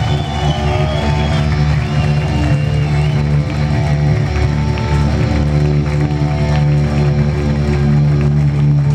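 Stoner metal band playing live, heard from the crowd: loud distorted electric guitars and bass holding long, low chords.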